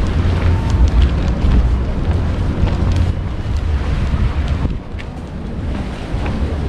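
Wind buffeting the microphone, a loud low rumble that eases a little about five seconds in.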